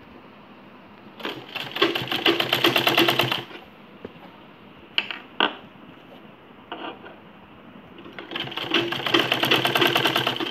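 Domestic sewing machine stitching lace onto fabric in two short runs of rapid, even stitching, one starting about a second in and the other near the end. Two sharp clicks come in the pause between them.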